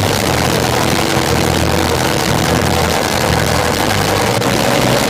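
Race car engine running steadily at a constant low speed, a loud, unbroken engine noise with no revving or pass-by.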